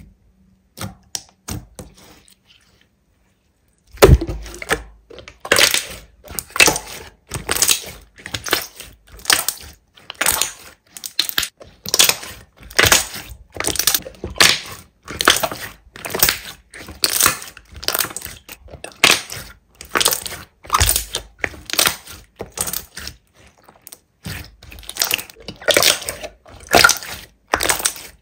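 Slime being pressed and squeezed, crackling and popping in sharp crackles about once or twice a second. The crackles start about four seconds in, after a few faint ticks.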